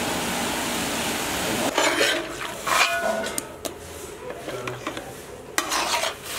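Steady sizzling hiss of small whole tomatoes cooking in a pot, which stops a little under two seconds in. Then knocks and metallic clatter as tomatoes are tipped from a plastic jug into a large aluminium pot, with a couple of short ringing clangs.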